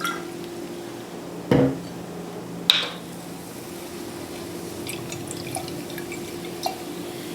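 Wine being poured into a drinking glass, with a knock and a sharp glass clink, then faint drips and ticks over a steady low hum.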